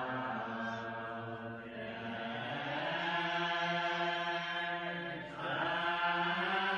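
Old Colony Mennonites singing a hymn a cappella in unison, without harmony parts. The voices hold long, slow notes and move to a new note about two seconds in and again about five seconds in.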